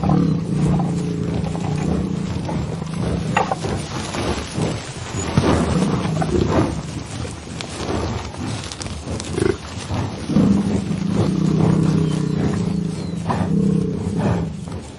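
Bison bellowing: two long, low roars, one at the start lasting a couple of seconds and another about ten seconds in lasting three to four seconds, with shorter, rougher calls between them.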